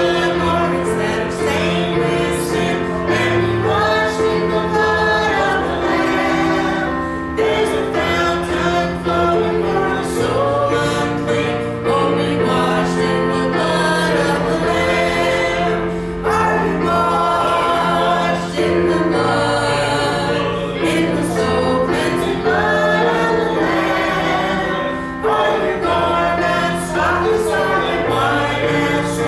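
Gospel song: a woman singing held, gliding melody lines over instrumental accompaniment with steady sustained low notes.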